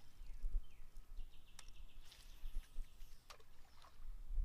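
Wind rumbling on the microphone outdoors, with a few short high chirps and a sharp click about a second and a half in.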